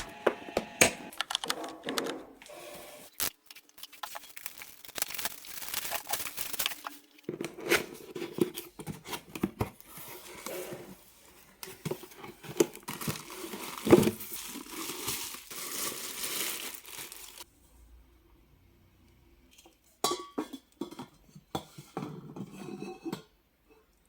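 Plastic grocery packaging crinkling and rustling as it is handled, with scattered light clicks and knocks. It stops for a couple of seconds about three-quarters of the way through, then picks up again.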